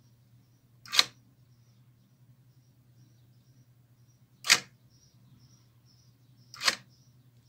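Car central-locking door actuator driving a sliding latch bolt back and forth, three short sharp clacks: about a second in, about halfway, and near the end.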